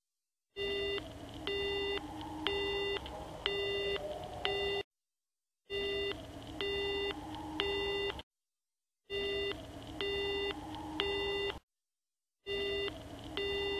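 Telephone busy tone in the receiver: a low steady beep repeating about once a second, broken by three short silences.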